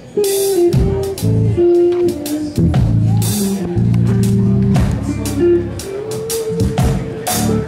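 Live jazz trio playing: a hollow-body electric guitar plays a melodic line of held notes over bass and a drum kit, with steady cymbal strokes and drum hits.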